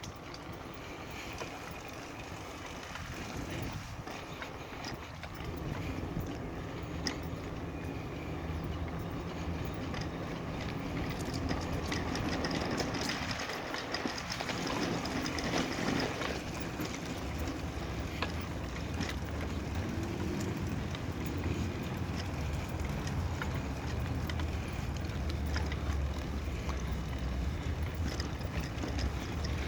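Bicycle rolling along a concrete trail: a steady rumble of tyres and air noise on the microphone that builds over the first few seconds, with scattered clicks and rattles.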